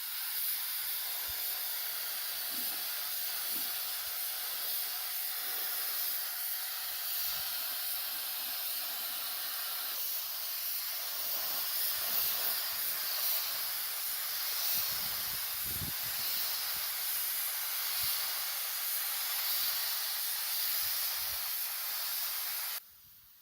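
A steady hiss of pressurised spray that cuts off suddenly near the end, with a few faint knocks underneath.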